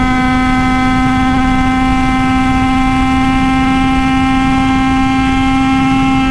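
Italkit 80cc single-cylinder two-stroke moped engine held flat out in top gear: a loud, high-pitched, steady engine note that creeps slightly up in pitch, with wind rush underneath.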